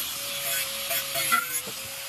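Angle grinder with a thin cut-off disc cutting through thin-walled galvanized square steel tube: a steady motor whine under a harsh hiss of disc on metal. Near the end the cut finishes, the hiss eases and the whine starts to drop in pitch as the disc comes off the work.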